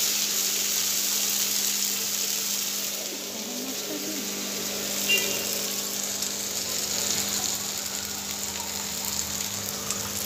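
Egg chili sizzling gently in a wok over a low gas flame, with one brief click about five seconds in.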